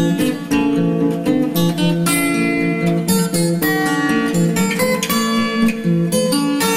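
Background music: strummed and plucked acoustic guitar, with frequent sharp strokes over changing chords.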